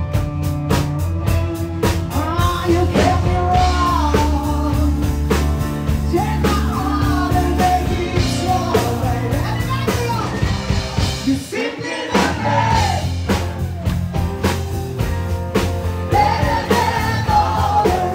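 Live rock band playing: a singer over a drum kit, bass and electric guitar with a steady beat. The bass and kick drop out for a moment about two thirds of the way through, then the groove comes back in.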